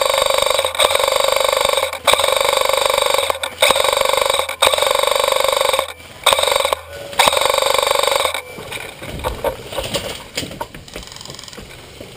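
KWA M16 airsoft electric gun firing on full auto in about seven long bursts with short pauses, a fast, buzzing gearbox rattle from a LiPo battery that raises the rate of fire. The firing stops about eight seconds in, leaving quieter scattered movement sounds.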